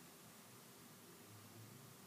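Near silence: faint room tone with light background hiss.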